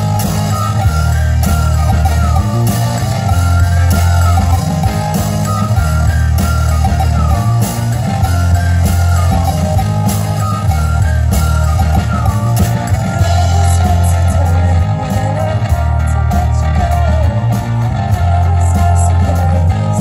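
Synth-pop band playing live through outdoor PA speakers: a heavy electric bass line in even, steady notes under drums, with accordion and synthesizer carrying a wavering melody above.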